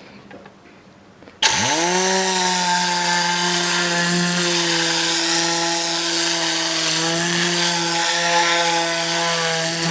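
Tornador compressed-air cleaning gun blasting air and cleaning solution onto fabric upholstery: a loud hiss with a buzzing hum. It starts suddenly about a second and a half in, the hum rising in pitch as it spins up, then holds steady and dies away with a falling pitch when released near the end.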